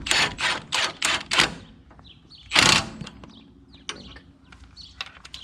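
Metal hand-tool work on a car's front brake and suspension parts: a quick run of five rattling strokes, then one louder, longer stroke about two and a half seconds in, and a few light clicks.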